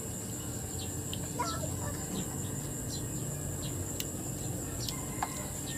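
Rural outdoor ambience: small birds calling in short, scattered, falling chirps over a steady high insect drone.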